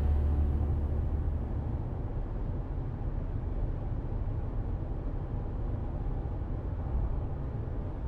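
Steady low rumble of a car heard from inside the cabin, its engine running, with the tail of background music fading out in the first second.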